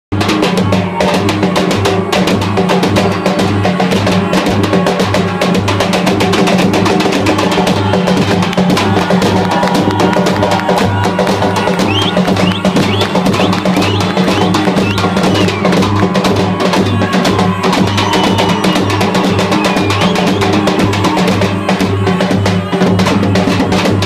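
Tupan, a large double-headed bass drum, beating a steady dance rhythm under two long wooden shawms (surle). One shawm holds a steady drone while the other plays a trilling, ornamented melody.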